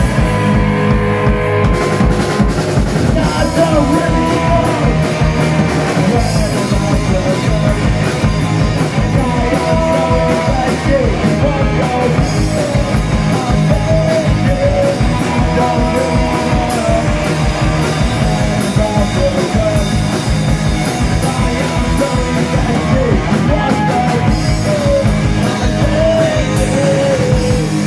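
Live punk rock band playing loud: electric guitars, bass and a drum kit, with a singer at the microphone.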